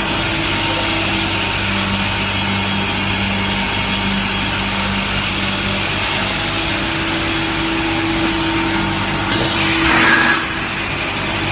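Rotary pulp-molding shoe tree machine running: a steady, loud machinery drone with a constant hum. About nine seconds in, a louder rush of noise builds and cuts off suddenly a second later.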